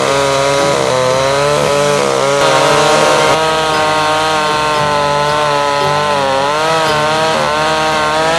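Chainsaw running hard while cutting through a tree trunk, its engine pitch wavering up and down as the chain bites and frees.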